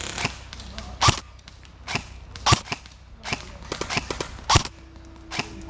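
Airsoft guns firing single shots, sharp cracks about one or two a second at an uneven pace.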